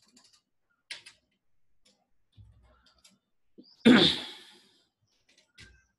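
A few computer keyboard and mouse clicks. Just before the fourth second comes one loud, sudden noise that fades out over under a second.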